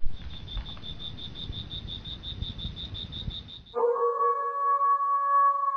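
Intro sound effect: a rapid high chirping, about six or seven pulses a second, over a low rumble. About four seconds in it stops abruptly and a long drawn-out howl begins, slowly falling in pitch.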